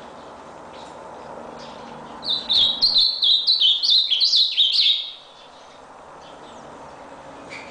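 Ultramarine grosbeak (azulão) singing one song phrase: a rapid run of about a dozen slurred high notes, each sliding down in pitch, starting about two seconds in and lasting under three seconds. A steady background hiss sits under it.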